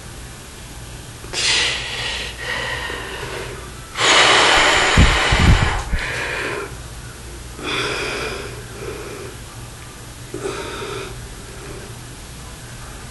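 A man breathing hard while straining to flex, about seven separate forceful breaths. The loudest, about four seconds in, comes with a deep thump on the microphone.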